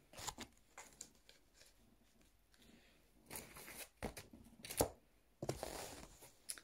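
Paper being handled close to the microphone: faint rustling and shuffling with a few light knocks, the sharpest about two-thirds of the way through, then a longer rustle near the end.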